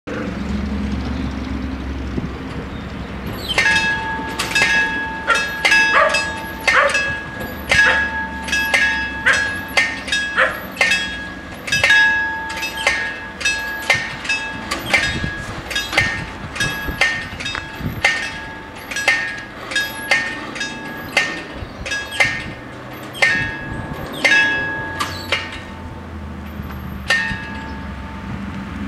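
Two level-crossing bells of an Italian FS 88 crossing striking fast, about one to two ringing strokes a second, from about three and a half seconds in until shortly before the end. They warn that the barriers are closing for an approaching tram.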